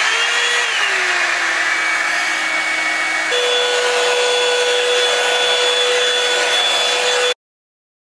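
Revlon One Step hair dryer brush running: a steady rush of air over a motor whine that dips in pitch in the first second, then steps up higher about three seconds in. The sound stops abruptly near the end.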